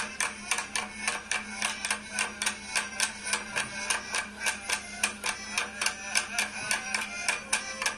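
Fast folk dance music for an Abkhaz dance, kept by a sharp, even percussive beat about five times a second.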